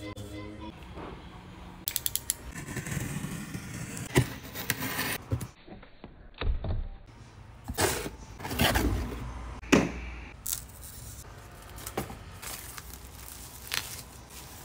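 A cardboard shipping box and the shrink-wrapped book inside it being handled and opened: rustling, scraping and tearing, with a quick run of crackling clicks about two seconds in and several sharp knocks.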